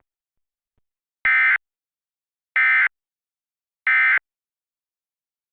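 Emergency Alert System end-of-message (EOM) code: three short bursts of SAME digital data tones, about a second apart, marking the end of the alert.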